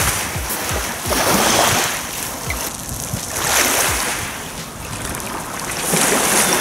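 Small waves washing up a gravel shore, swelling and fading every second or two, with wind buffeting the microphone.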